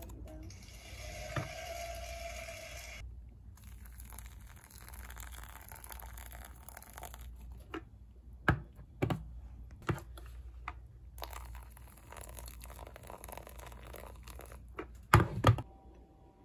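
Paper drip-coffee bag being handled on a mug: tearing and crinkling of the paper filter. Sharp knocks and clicks follow, the loudest a double knock near the end.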